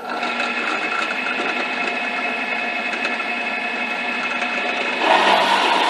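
Drill press motor running steadily with a whine of several steady tones. About five seconds in, the 3/8-inch bit starts cutting into the wooden block and the sound grows louder and rougher.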